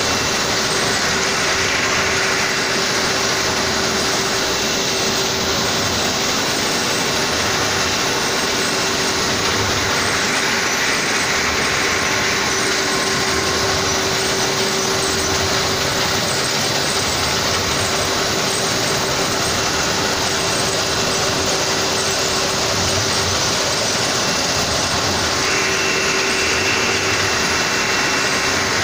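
Plastic extrusion-coating lamination line running: a steady, loud industrial machine noise with a constant hum tone.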